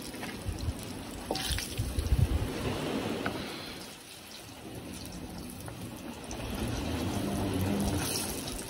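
Battered stingray pieces frying in hot oil in a pot, a steady crackling sizzle, with irregular low rumbles underneath.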